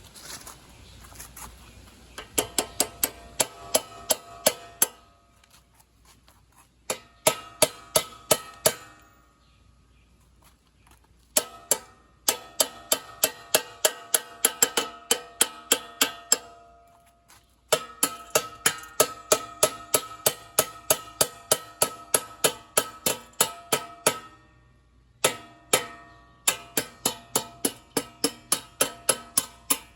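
Metal ratchet clicking in runs of evenly spaced clicks, about four or five a second, each click with a short metallic ring. It stops and restarts several times, with pauses of a second or two between runs, as parts of the chain drive are tightened.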